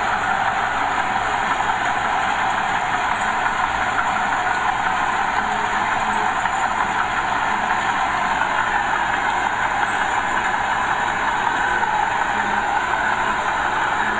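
Diesel engines of earthmoving machinery, a small bulldozer and a dump truck, running steadily.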